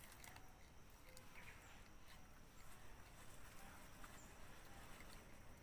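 Near silence: faint outdoor background with a few soft, scattered clicks.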